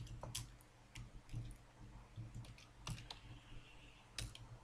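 Computer keyboard keys clicking one at a time: about eight slow, unevenly spaced keystrokes typing a short terminal command, faint over a low steady hum.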